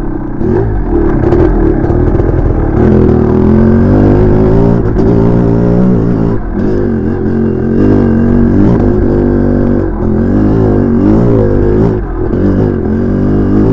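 1986 MStar (Maico) 500 two-stroke single-cylinder dirt bike engine under riding load, its revs rising and falling with the throttle and dropping briefly a few times. The engine is freshly rebuilt and being broken in.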